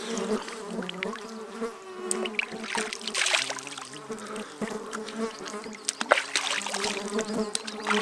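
A flying insect buzzing close by, its hum dropping in pitch about three and a half seconds in. River water splashes as it is scooped up in cupped hands and thrown onto a face, about three seconds in and again near the end.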